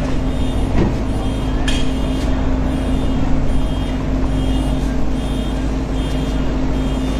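A motor vehicle's engine idling steadily, with a high electronic beep repeating about every three-quarters of a second. Two short knocks come about one and two seconds in.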